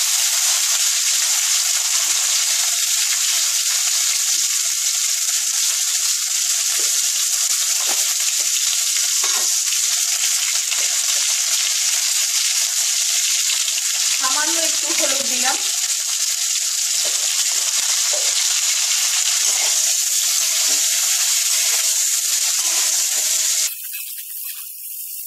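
Cauliflower florets rubbed with salt and turmeric sizzling as they fry in hot mustard oil in a kadai: a steady frying hiss that drops off abruptly near the end.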